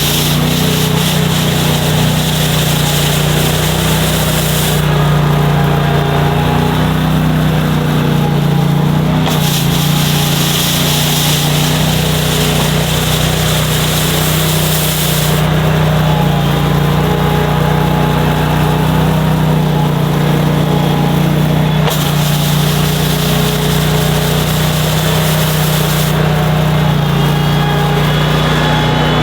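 Engine running steadily while driving a Boss rotary snow broom, with the hiss of the bristles sweeping snow. The hiss drops away about five seconds in, returns near ten seconds, and cuts in and out twice more.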